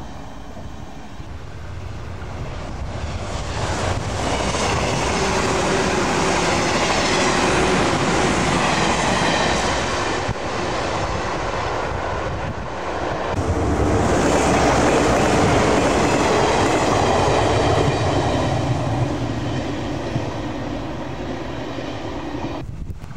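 Electric express trains passing on the line: one swells up as it approaches and runs through, then, after a sudden drop, another train runs past, the noise of its wheels on the rails rising and then easing off.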